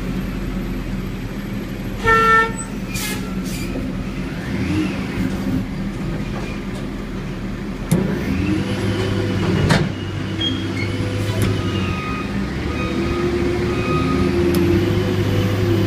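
Diesel engine of a container-handling machine running steadily, its note changing as it works, with a short horn toot about two seconds in and two sharp knocks near eight and ten seconds.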